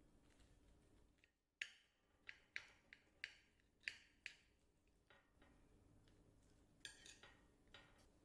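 Light clicks and knocks of kitchen utensils on dishes or a work surface: a quick run of about seven sharp taps in the first half, then a few more near the end, all faint.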